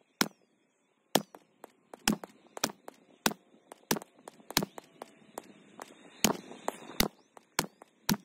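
9mm Ruger PC Carbine firing semi-automatic, about a dozen sharp shots at a steady pace of roughly one every half second to second.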